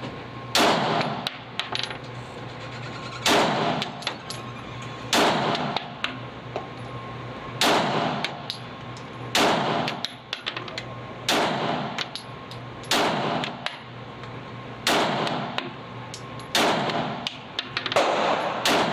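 Glock P80 9mm pistol fired in slow, aimed single shots, about ten in all, one every two seconds or so, each ringing out in the echo of an indoor concrete range. Light clicks and clinks fall between the shots.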